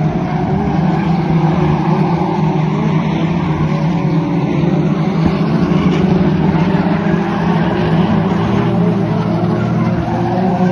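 F2 stock car engines running hard through a race, a steady loud engine drone with no pauses.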